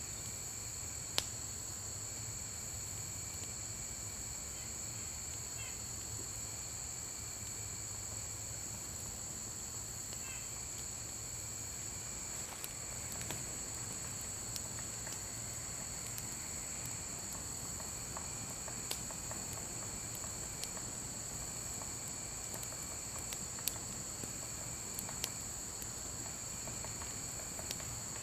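A steady, high insect chorus in summer woodland, with a lower call repeating in short spells. A handful of sharp single pops, like wood crackling in a campfire, are scattered through it.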